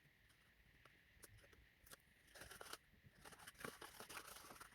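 Faint rustling and light taps of cardstock and adhesive tape being handled, near silence in between.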